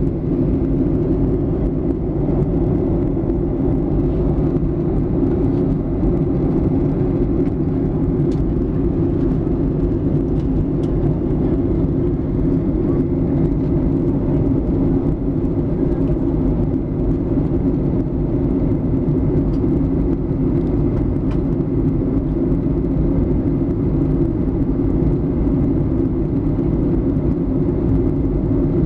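Jet airliner cabin noise in cruise: engine and airflow heard from a window seat as a steady, low drone.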